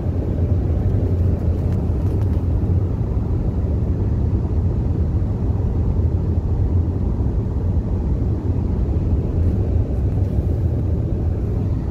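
Cabin noise inside a moving vehicle: a steady low rumble of tyres on a sealed road and the engine running.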